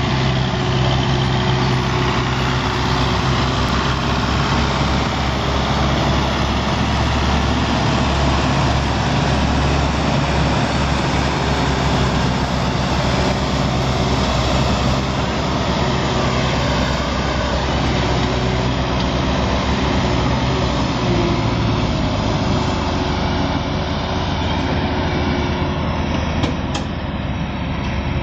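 Diesel engines of two tractors, a Massey Ferguson and a Belarus MTZ, running hard under heavy load as they haul a sand-laden trolley through soft ground. The drone is loud and steady and eases slightly near the end.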